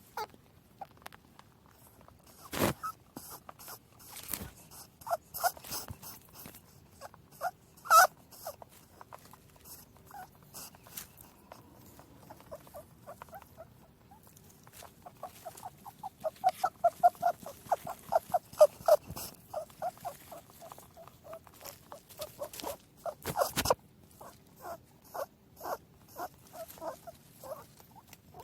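Rabbits making small noises: runs of short, rapid squeaks and clicks, busiest toward the middle, with a few sharp knocks, the loudest about 8 seconds in.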